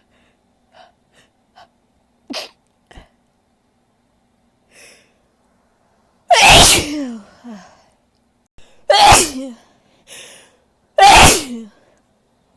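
A woman sneezing loudly three times, roughly two seconds apart, each sneeze's voice sliding down in pitch. Faint short breaths come before them.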